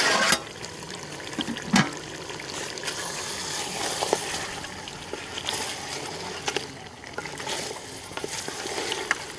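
Water running and splashing steadily, with a few short knocks and clatters, the loudest about two seconds in.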